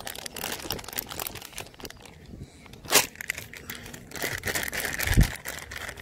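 Plastic bag rustling and crinkling as it is handled: a run of small crackles, a sharper crackle about three seconds in and a low thump near five seconds.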